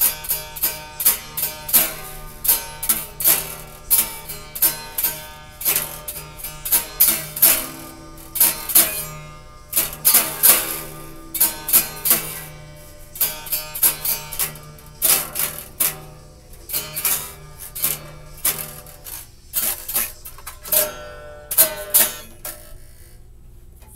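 Acoustic guitar played with the fingers, chords and notes plucked about twice a second in a steady rhythm, the strings ringing between strokes. The playing stops near the end.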